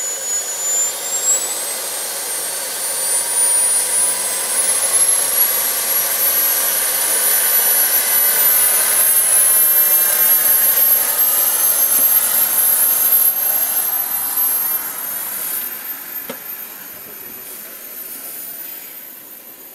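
Small gas turbine engine in a 5½-inch gauge model of the English Electric GT3 locomotive, running with a high whine over a jet-like hiss. The whine climbs in pitch over the first several seconds, then holds steady. It fades away over the last few seconds.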